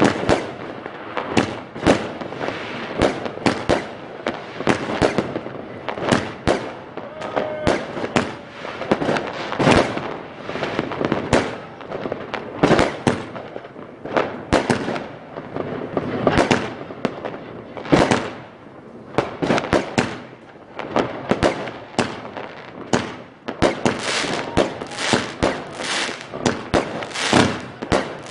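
Aerial fireworks going off in quick succession: a continuous run of sharp bangs, coming thickest near the end.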